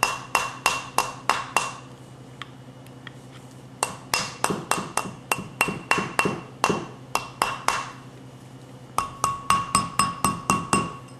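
Rawhide mallet tapping a copper wire ring on a steel ring mandrel in three quick runs of light blows, about five a second, with short pauses; the steel mandrel rings with a high ping under the taps. The taps are driving the ring down the tapered mandrel.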